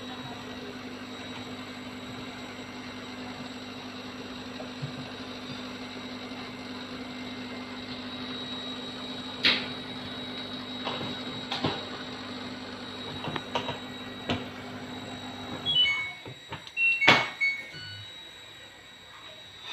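Steady machine hum with several sharp knocks and clicks, like a door being shut and latched. The hum then stops, and a short run of electronic beeps at different pitches follows, like an appliance control panel.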